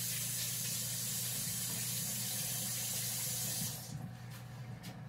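Kitchen tap running steadily into a sink, shut off a little under four seconds in.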